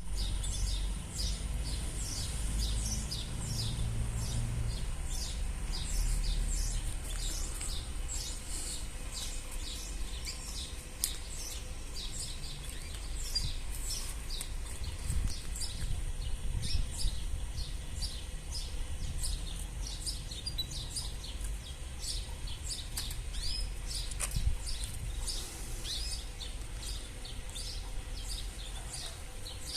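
Canaries chirping and calling, a dense run of short, high chirps from several birds, over a low rumble.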